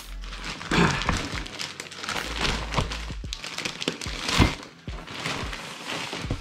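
Clear plastic wrapping crinkling and rustling as it is pulled and torn off a new fabric tackle bag, in a run of uneven crackles with a few louder snaps.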